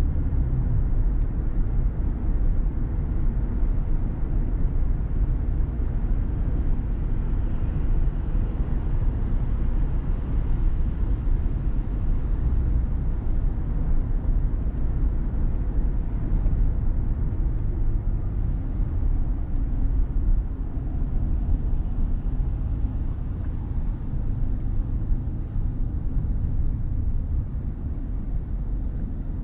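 Car driving steadily along city streets: a continuous low rumble of road and engine noise, with a few faint ticks midway through.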